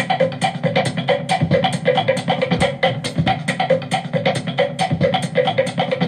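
Background music: a quick, steady drum beat with plucked strings.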